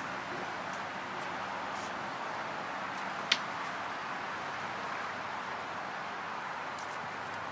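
Steady outdoor background noise, like a distant urban hum, with a single sharp click about three seconds in.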